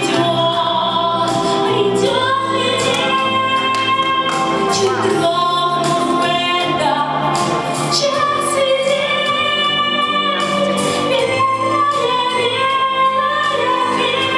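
A woman singing a song into a microphone over an instrumental backing, amplified through the hall's loudspeakers, holding several long notes.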